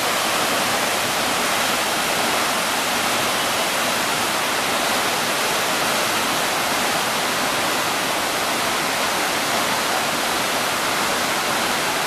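Tall waterfall plunging into a pool: a steady, even rush of falling water.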